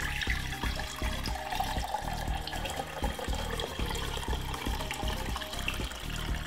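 Ginger beer liquid poured in a steady stream from a plastic bowl through a wire mesh sieve, splashing into a glass measuring jug as the jug fills.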